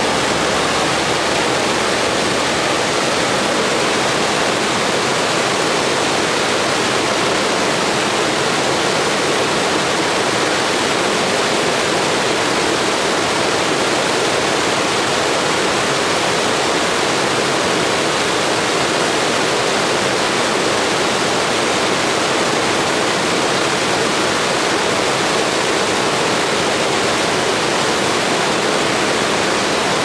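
Snowmelt mountain stream rushing and splashing down a small cascade over boulders, a steady, even roar of white water.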